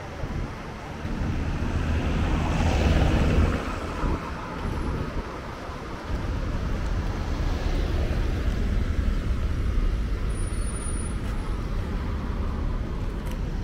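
Street traffic noise: a steady rumble of road vehicles, with one passing close and swelling louder about two to three seconds in.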